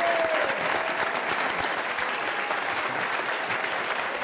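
Studio audience applauding: dense, steady clapping from many hands, easing off slightly toward the end.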